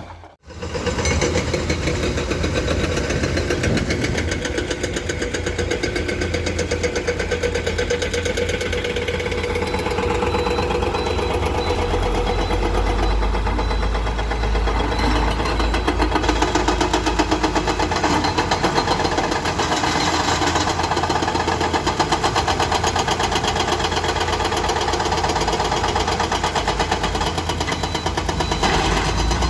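Diesel engine of heavy earthmoving machinery running steadily with a fast pulsing beat. The deep rumble grows stronger for several seconds about twelve seconds in.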